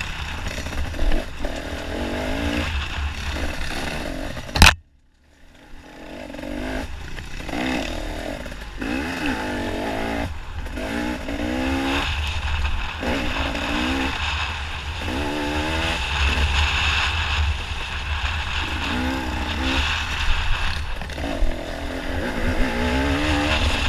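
Dirt bike engine revving up and down over and over as the bike is ridden hard along a trail, with wind buffeting the microphone. About four and a half seconds in comes a single sharp crack, then a brief dropout to near silence before the engine returns.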